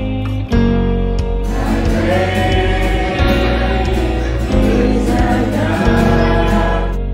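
Background music with a strummed guitar for about the first second and a half, then a small group singing a worship song together.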